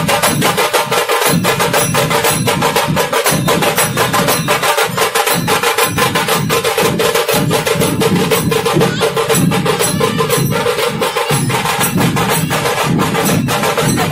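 Procession band music: fast, even drumbeats over a steady held tone.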